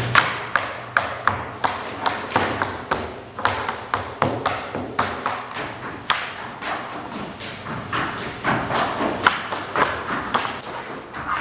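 Tap shoes striking a stage floor: sharp taps and heavier stamps in an uneven rhythm, about two to three a second, ringing briefly in the hall.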